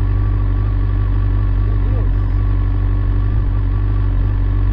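2021 BMW S1000RR inline-four engine idling steadily through a titanium Akrapovic exhaust, running a Brentune ECU flash that smooths its idle.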